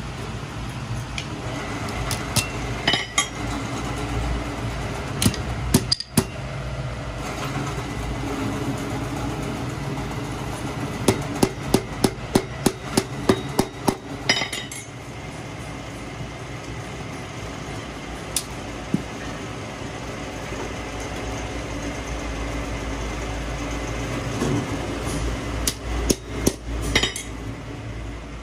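Hand hammer striking a Fiat 640 tractor's steel clutch disc in sharp metallic blows: a few scattered strikes, then a quick run of about ten, roughly three a second, about halfway through, and another short cluster near the end.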